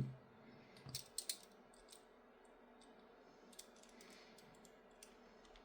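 Faint clicks of a small M2 screw and 3D-printed plastic chassis parts being handled, a few close together about a second in and a couple more near the middle, otherwise near silence.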